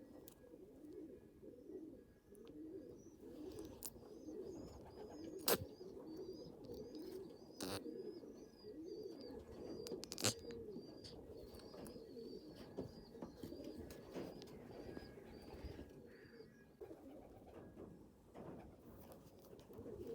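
Pigeons cooing in low, rolling coos throughout, with quick high chirps running through the middle of the stretch and a few sharp clicks.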